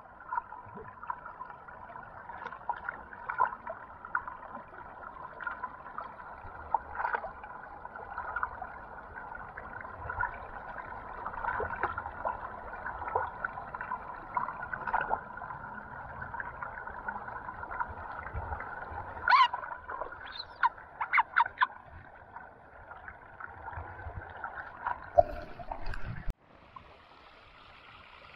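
River water gurgling and lapping close to the microphone, with many small splashes and a cluster of sharper splashes about 20 seconds in. About 26 seconds in the sound cuts abruptly to a quieter, hissier stream.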